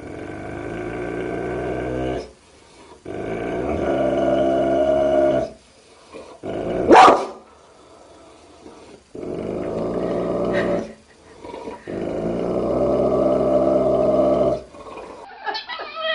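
A dog making long drawn-out growling calls, four in a row, each about two and a half seconds. A short sharp cry comes about seven seconds in.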